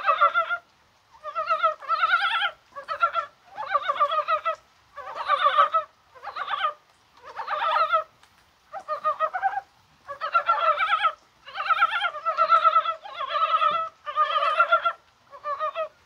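Mountain brown frogs (산개구리) calling in a breeding chorus: short rattling croaks, each about half a second to a second long, following one another roughly every second and sometimes overlapping. The uploader takes it that they are spawning.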